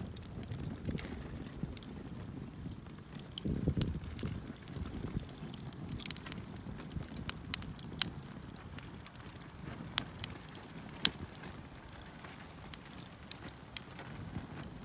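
Wood campfire crackling, with sharp pops scattered irregularly over a low steady rumble.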